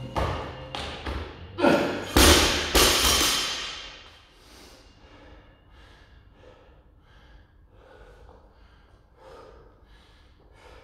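Loaded barbell with bumper plates dropped onto the gym floor: a few heavy thuds, one after another, as it lands and bounces, each with a short ring. After that comes faint, repeated heavy breathing.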